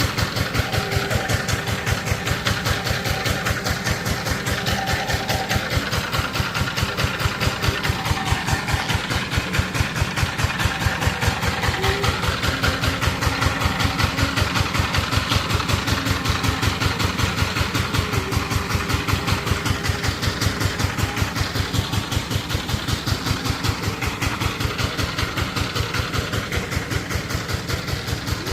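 Chinese Sifang power-tiller diesel engine running steadily, its firing strokes coming as an even, rapid knocking beat.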